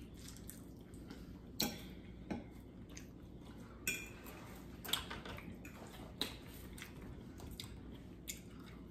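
Cutlery clicking lightly against plates every second or so as spaghetti is eaten.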